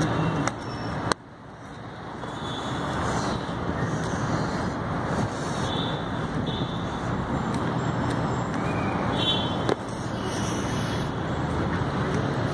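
Steady road traffic noise, a continuous hum of passing vehicles. It drops sharply about a second in, then slowly swells back.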